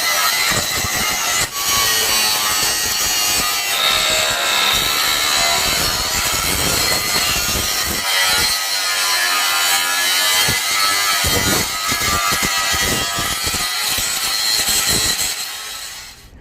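A power tool working metal, running steadily under load with its pitch shifting, then dying away near the end.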